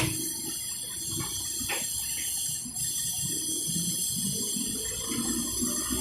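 Hydraulic excavator running while it loads a dump truck, with earth pouring from the bucket into the truck bed in a rushing, pouring noise and a couple of short knocks.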